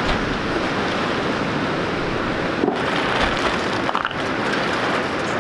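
Strong wind blowing across the microphone: a steady rushing noise with a couple of brief jolts.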